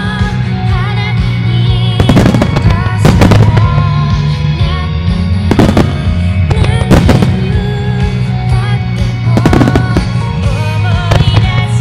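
Music starmine: loud music playing through the show's loudspeakers, with sharp firework bangs cutting through it every second or two, several in all.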